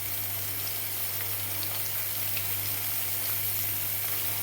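Sliced onions sizzling steadily in hot oil in a kadai, with scattered small crackles over a steady low hum.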